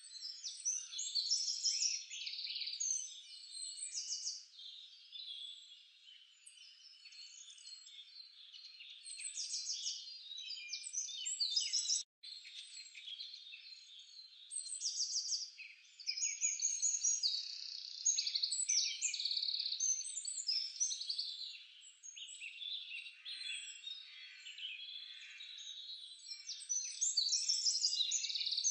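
Many small birds chirping and trilling at once: quick high chirps, short down-sweeping calls and rapid trills that rise and fall in loudness. The sound cuts out for a moment about twelve seconds in.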